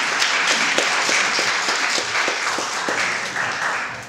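Audience applauding in a theatre, dense clapping that fades out near the end.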